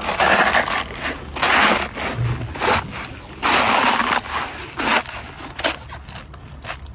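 Hippo chewing a red cabbage: loud crunching bites at irregular intervals, about six of them, growing shorter and fainter toward the end.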